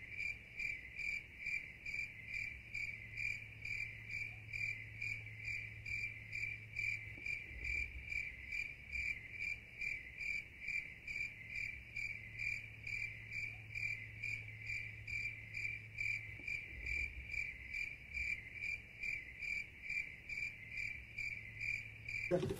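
An electronic sound effect: a high chirping tone pulsing evenly at about two pulses a second, like a cricket, which stops abruptly at the cut.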